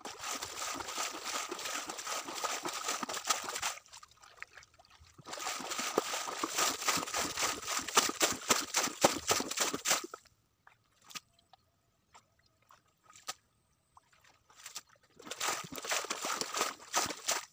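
Muddy water being poured out of a black plastic bucket, splashing into a shallow stream. Three long pours, with quiet gaps between them about four and ten seconds in.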